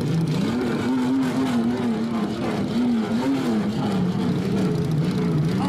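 A car engine being revved up and down in a steady rhythm through a loud exhaust, its pitch rising and falling in smooth waves over and over, the kind of rhythmic exhaust call done at loud-exhaust meets.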